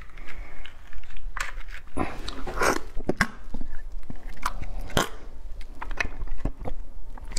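Close-miked eating of crab: wet sucking and slurping of meat from the shell, mixed with sharp clicks and cracks as the shell is picked apart.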